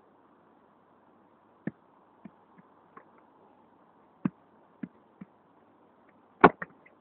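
A football struck hard by a player's foot near the end, the loudest knock of all, after a few lighter knocks and taps as the ball is set up on artificial turf.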